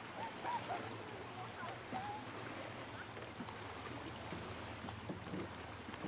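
Children's voices, faint and brief in the first couple of seconds, over water lapping against an inflatable tube and a low steady hum.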